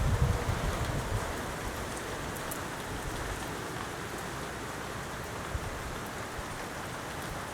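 Steady rain falling during a thunderstorm, an even hiss, with a few low rumbles in the first second.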